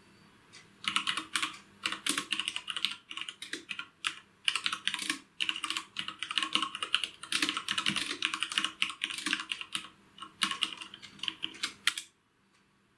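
Typing on a computer keyboard: rapid runs of key clacks with short pauses, stopping abruptly about twelve seconds in.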